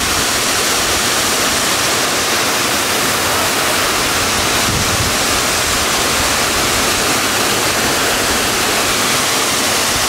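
Waterfall pouring into a rock plunge pool: a steady, unbroken rush of falling water.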